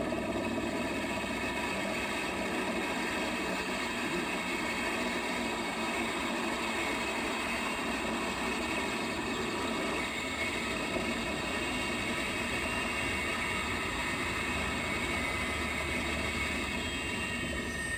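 Scale RC model helicopter running steadily: a high whine from the drive and rotor head over the rotor noise. Near the end the whine starts to fall in pitch.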